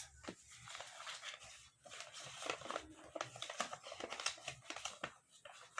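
Sheet of paper being folded and creased by hand into a paper aeroplane: faint, irregular rustles and crinkles.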